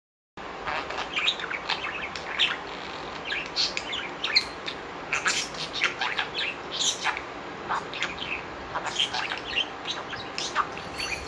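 Budgerigar chirping and chattering: a run of short, irregular chirps.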